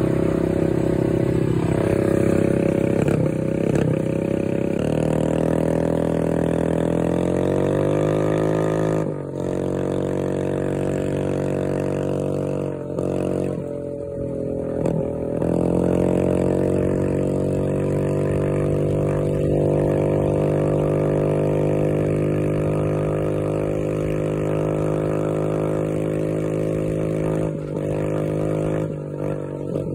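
Motorcycle engine and exhaust running. The pitch climbs and drops several times as the throttle is worked: a slow rise, a sharp drop about nine seconds in, further dips, then a steadier stretch.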